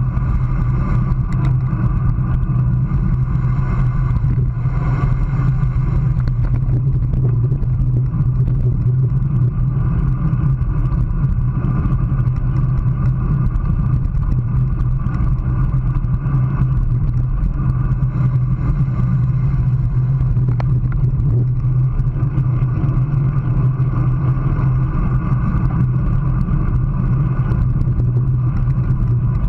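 Steady wind rush on a handlebar-mounted action camera's microphone, mixed with road-bike tyre noise on asphalt at about 25 mph: a continuous low rumble that never lets up.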